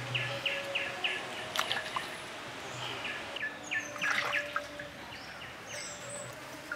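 Wild birds calling: a quick run of short chirps, about four a second, near the start and again about three seconds in, with a few higher whistled notes. A few sharp clicks sound in between.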